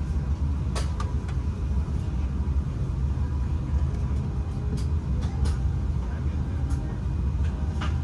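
A vehicle's steady low rumble, with a few light clicks and knocks scattered through it.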